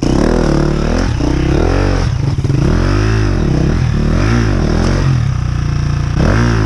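2019 KTM 350 EXC-F's single-cylinder four-stroke engine pulling the bike up a steep rocky climb, the revs rising and falling about once a second as the throttle is worked on and off.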